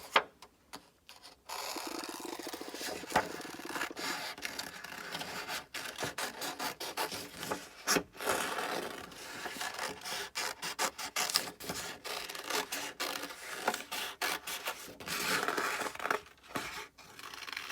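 Scissors cutting around a paper cut-out: a long run of short, quick snips mixed with paper rustling, starting about a second and a half in.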